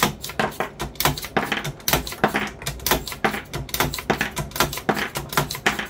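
APS Striker 12 airsoft shotgun being unloaded. Repeated trigger pulls click its spring-wound drum round one position at a time while the push rod knocks the shells out to clatter onto a wooden bench. The result is a quick run of clicks and clacks, about three or four a second.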